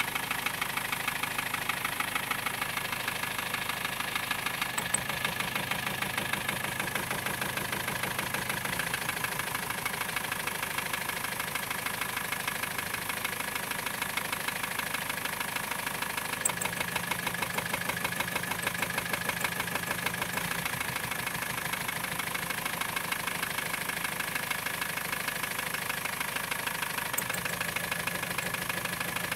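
Car engine idling with a rapid, steady knock, run during an injector cut-out test, with injectors disconnected to find which cylinder the knock comes from. The engine note shifts slightly a few times.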